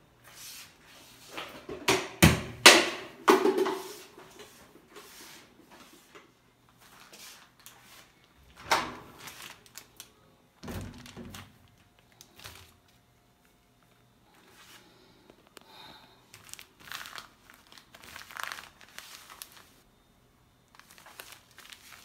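Handling noise at a top-loading washing machine: a cluster of loud knocks and rustling in the first few seconds, another knock about nine seconds in and a low thump about eleven seconds in, then scattered soft clicks and crinkling.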